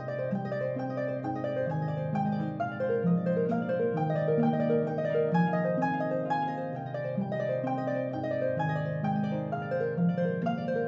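Harp music: a melody of plucked notes over lower bass notes, playing steadily throughout.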